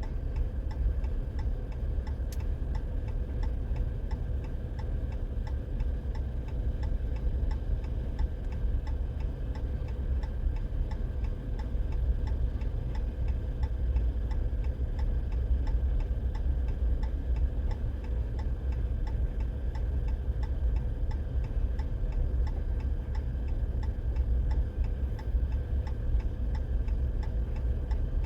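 Car's hazard-light flasher relay ticking steadily and evenly, over a low steady rumble.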